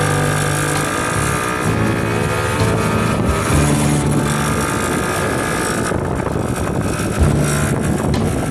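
Small motor scooter engine running steadily while riding along a road, with wind noise on the microphone.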